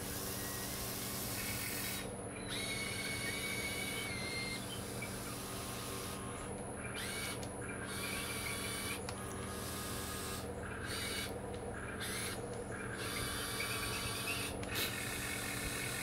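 Small electric motors of a Huina 1580 RC excavator whirring in short stop-start bursts, with a steady low hum underneath.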